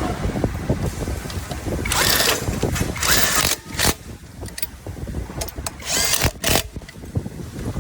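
Metal tools and parts being worked on the granulator's blade assembly: scattered metallic knocks over a steady low rumble, with several short, harsh scraping bursts, a few of them squealing.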